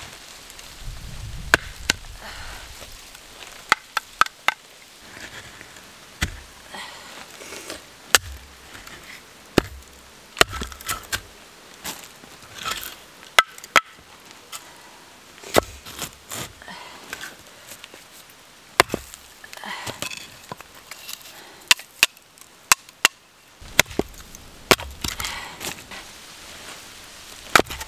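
Small axe splitting short lengths of dry firewood: sharp chops into the wood, unevenly spaced, roughly one a second.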